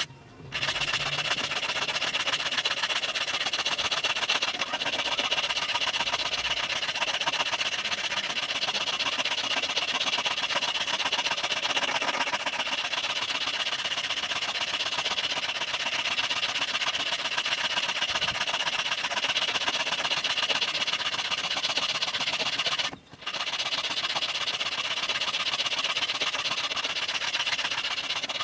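A power tool's motor running steadily while it grinds metal, giving a continuous hissing whine. The sound cuts out briefly just after the start and again about three-quarters of the way through.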